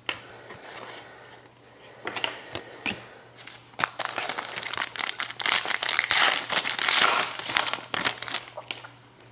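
Crinkling and tearing of a plastic trading-card pack wrapper being handled and opened. The crackling comes in quick clusters, busiest in the middle.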